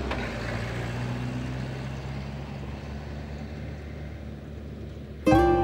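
A motor vehicle running on a gravel road, its engine and tyre noise slowly fading. Music starts abruptly near the end.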